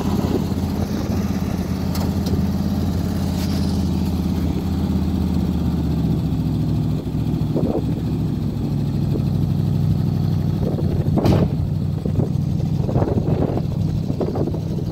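Engine of a stripped-down International Harvester Scout running steadily at low speed while it tows another Scout on a strap, with wind noise on the microphone. A sharp clunk sounds about three-quarters of the way through.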